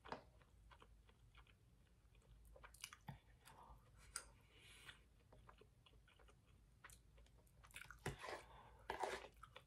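Faint chewing of a mouthful of instant noodles, with scattered light clicks of a metal spoon in the cup. A few louder mouth sounds come near the end.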